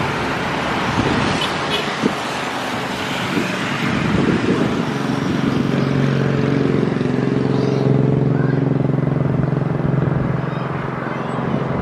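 Steady engine noise from a jet airliner taxiing on the runway, mixed with road traffic. From about four seconds in, a low hum with a steady pitch runs under it.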